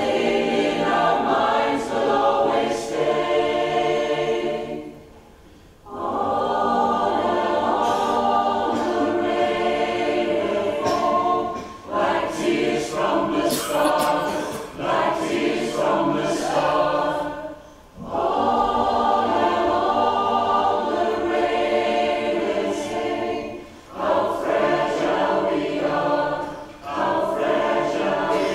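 Mixed choir of men's and women's voices singing, in phrases broken by short pauses about five, eighteen and twenty-four seconds in.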